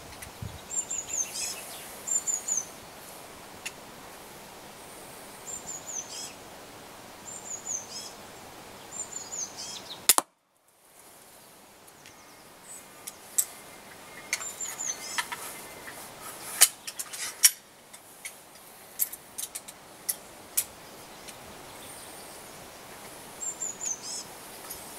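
One sharp crack about ten seconds in from the MX-80 pistol crossbow firing a bolt into the target, followed by a scatter of clicks and knocks. Small birds chirp throughout, a short falling call repeated every second or two.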